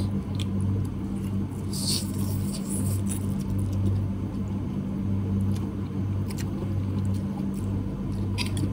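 Spicy instant ramen being eaten: scattered small clicks and a brief slurp about two seconds in, over a steady low hum.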